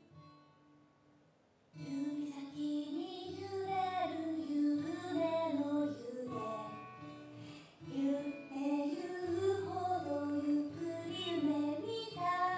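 Song: a high voice singing slow, held phrases over a soft accompaniment, coming in about two seconds in after a near-silent pause.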